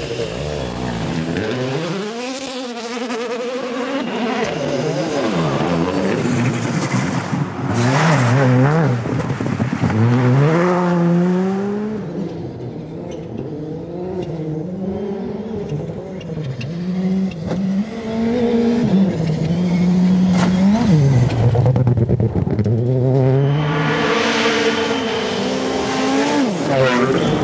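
Turbocharged four-cylinder World Rally Car engines at full throttle on gravel stages. The revs climb and drop sharply again and again through gear changes and lifts over several passes, with tyre and gravel noise underneath.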